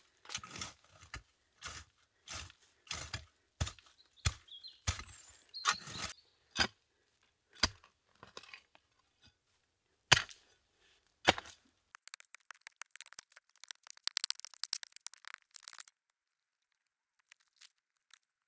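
Repeated strokes of a long-handled digging tool chopping into soil and roots, about two a second at first, then fewer and farther apart. Near the end a few seconds of dense crackling rustle as loose soil and debris are disturbed.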